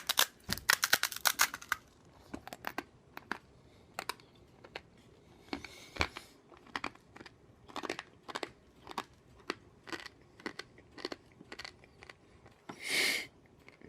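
Dry, uncooked ramen noodles being crunched and chewed: a quick run of crisp cracks in the first two seconds, then scattered single cracks as the chewing goes on. A brief louder hiss comes near the end.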